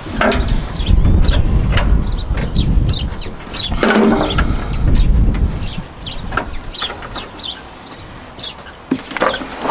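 Chickens clucking, with short high chirps repeating throughout and a pitched call about four seconds in. A heavy low rumble runs under the first five seconds or so, with a few sharp clicks.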